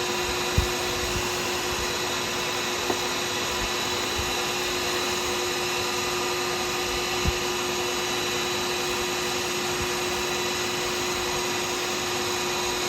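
Wood lathe running steadily with a constant motor whine while a pen blank spins during the polishing stage, with a couple of brief low knocks.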